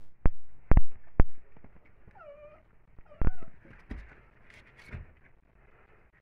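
A few sharp knocks and thumps, three in the first second or so and a strong one about three seconds in, with a short, high, wavering whimper from a young animal about two seconds in and a briefer cry just after the later knock.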